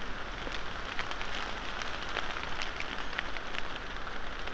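Rain falling on leafy forest undergrowth: a steady hiss scattered with many small, sharp drop taps.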